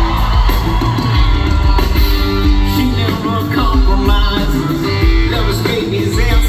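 Live rock band playing the opening of a song, with guitar and bass over a steady beat, heard from the audience.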